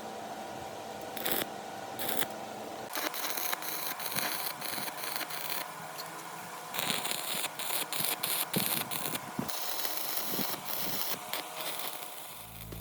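Irregular scraping and clicking from hands-on work on small parts, over a faint steady hum.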